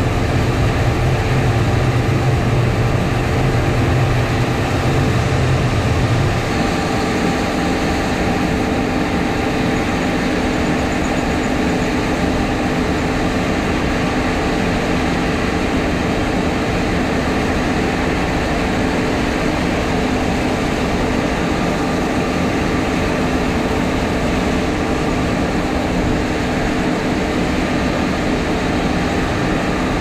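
Combine harvester and grain-cart tractor engines running steadily while the combine's unloading auger pours wheat into the cart. A deep low hum drops out about six seconds in; the rest of the machinery sound carries on unchanged.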